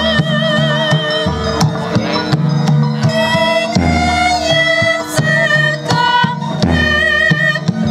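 Javanese gamelan music accompanying a wayang kulit performance. A high melodic part with vibrato, likely a singer, holds and shifts notes over steady kendang drum strokes.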